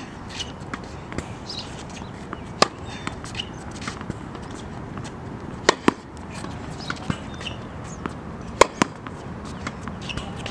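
Tennis ball struck by a racket: sharp pops about every three seconds, twice in quick pairs.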